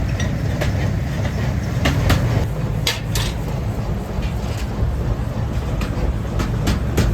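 Steady low machine rumble in a forging workshop, with a few sharp hammer strikes on hot iron, the loudest about three seconds in.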